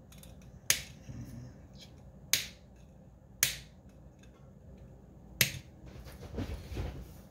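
Wire cutters snipping the soldered capacitor leads on the back of a circuit board: four sharp snaps, one to two seconds apart. Soft handling rustle follows near the end.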